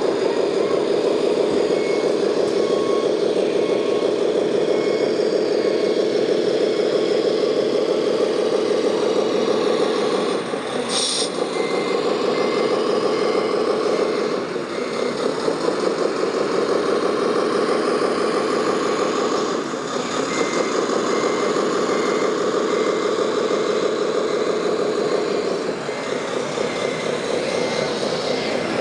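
Radio-controlled model construction vehicles running with a steady mechanical drone that dips briefly a few times. Runs of electronic reversing beeps, about two a second, sound in the middle and again through the second half.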